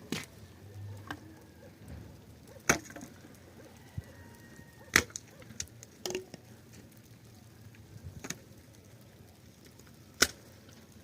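Axe chopping and splitting firewood: about five sharp blows a few seconds apart, with lighter knocks of wood between them.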